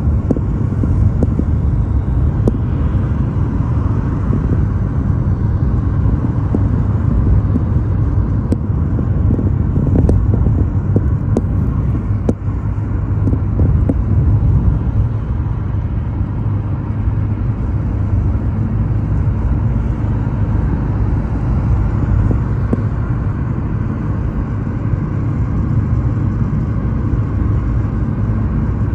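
Steady road noise inside a moving car's cabin at motorway speed: a deep, even rumble of tyres and engine, with a few faint clicks.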